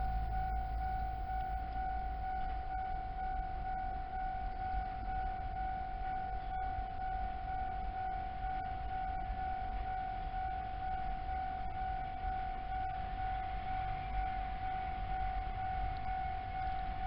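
Japanese level-crossing warning alarm ringing: a steady, evenly pulsing electronic tone, with a low rumble underneath.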